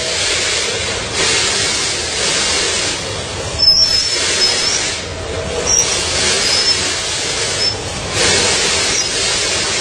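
Mingyue MY-1000FB vertical powder packing machine running through its bag-forming and filling cycle. It makes a steady mechanical noise with a hiss that swells and fades over and over, and short high squeaks several times from the middle on.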